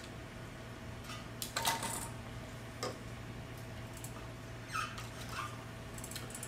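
A few soft knocks and clicks of FPV drones being handled and moved on a wooden table, scattered over several seconds, with a steady low hum underneath.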